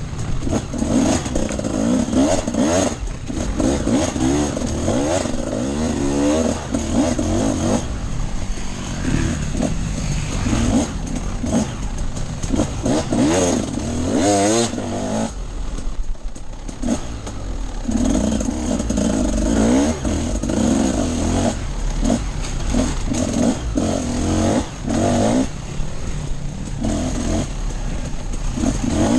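Off-road enduro motorcycle engine under way, the throttle opened and closed over and over so the pitch keeps rising and falling. The engine note drops back briefly about halfway through, then picks up again.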